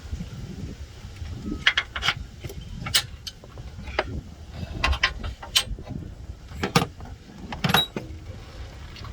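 Hand tools clicking and clinking against metal while an AC compressor mounting bolt is worked loose: about a dozen sharp, irregular clicks.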